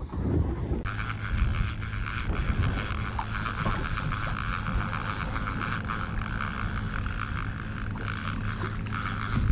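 Suzuki outboard motor running steadily at trolling speed, a low even hum under the rush of water along the hull and wind on the microphone.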